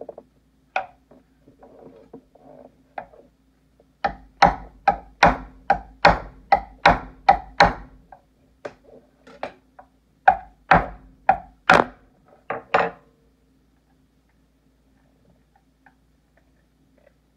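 Chef's knife chopping into a cooked lobster claw's shell on a wooden cutting board: about ten sharp chops at roughly two and a half a second, then, after a short pause, about six more.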